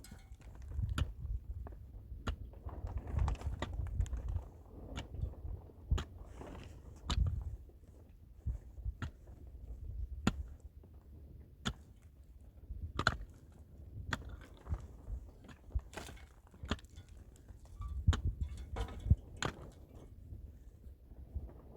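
Irregular sharp knocks and clicks, about one or two a second, over an uneven low rumble.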